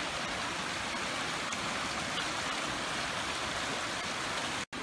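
Steady rushing of a mountain river running over rocks and rapids in a gorge below, cut off abruptly near the end.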